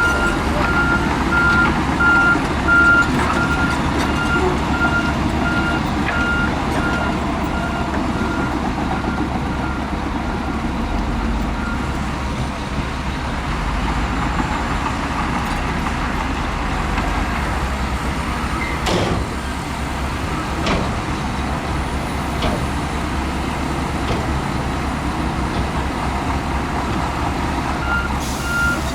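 Diesel engines of heavy earthmoving machines running steadily under load, with a reversing alarm beeping in a regular pulse for the first part and again near the end. Two sharp metallic clanks come past the middle.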